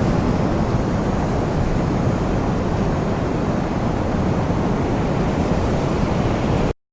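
Wind blowing as a steady, low rushing noise that cuts off suddenly near the end.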